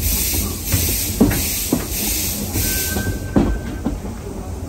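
Small steam locomotive pulling its train slowly: steam puffs hissing about one and a half times a second fade out about three seconds in, over a steady low rumble of the running gear. Sharp wheel clicks over the rails and a brief high squeal near the middle are heard as the train slows.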